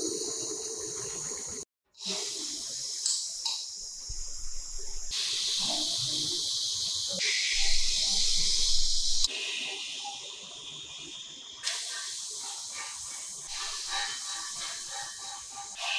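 A handheld butane torch hisses briefly. After a cut, an electrostatic powder-coating gun sprays with a steady hiss of air, in several short stretches that shift in level and tone from one stretch to the next.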